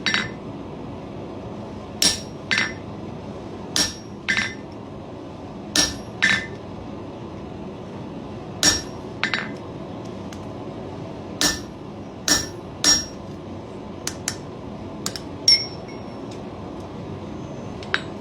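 Hammer striking a diamond punch made from coil spring, driving it into the iron to stamp a bulldog's nose. Sharp ringing metal blows, mostly in pairs about half a second apart, every second or two.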